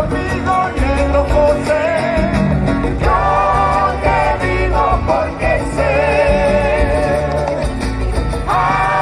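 A Chilean folk band playing live, with a sung melody over guitars and a steady beat, heard from among the audience.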